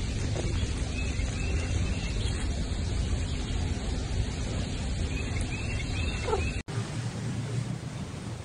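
Outdoor background noise: a steady low rumble with a few faint high chirps. It cuts out abruptly about six and a half seconds in, then gives way to a quieter, different background.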